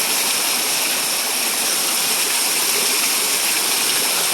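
Heavy rain pouring down in a downpour: a dense, steady hiss that never lets up.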